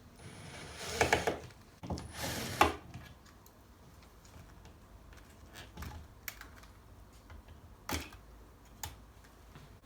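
Scraping and rattling as a light-switch cover plate is unscrewed and taken off the wall box, followed by a few sharp plastic clicks.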